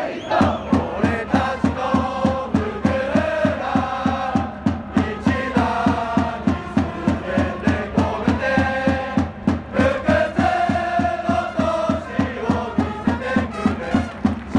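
Baseball cheering section singing a team fight song in unison, backed by a bass drum keeping a steady beat about three times a second.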